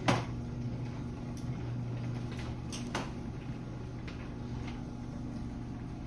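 Chamberlain Whisper Drive WD822KLS belt-drive garage door opener running with a steady hum as it lowers a sectional garage door. A sharp click comes right at the start and another about three seconds in.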